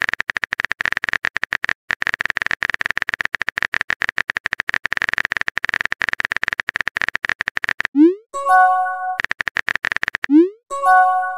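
Texting-app keyboard sound effect: rapid electronic typing clicks as a message is typed, then a short rising swoop and a chime as it sends, about eight seconds in. After a brief second run of clicks, the swoop and chime come again near the end.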